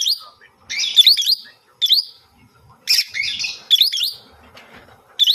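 Lovebird giving bursts of sharp, high-pitched chirps, about five clusters of quick notes roughly a second apart.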